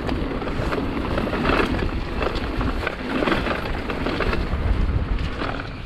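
Mountain bike descending a rough trail: tyres rolling over dirt and stones and the bike knocking and rattling over bumps, with heavy wind rumble on the microphone.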